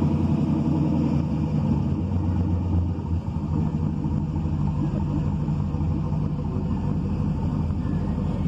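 Engine of a lifted, military-style flatbed truck on big off-road tyres running at low revs as the truck creeps past. The low, steady engine note eases a little about three seconds in.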